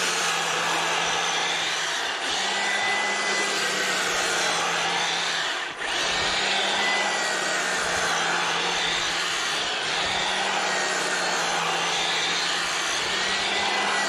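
EGO POWER+ cordless power head with a 22-inch bristle brush attachment running steadily, its electric motor whining while the spinning bristles sweep through dead grass and thatch. The sound dips briefly a few times, most deeply about six seconds in.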